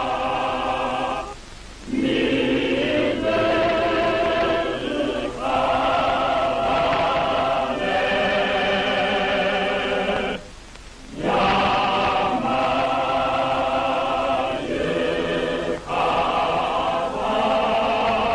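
A choir of music students singing a slow, solemn song in long held notes, with short breaks between phrases about a second and a half in and about ten seconds in, heard on a narrow-band 1940s newsreel soundtrack.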